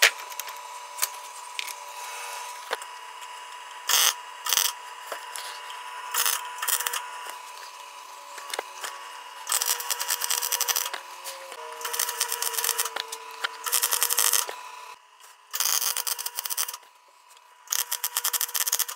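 MIG welder arc crackling in short bursts of up to a second and a half, stopping and starting about eight times as tacks and short beads are run on a steel socket. A steady hum sits underneath.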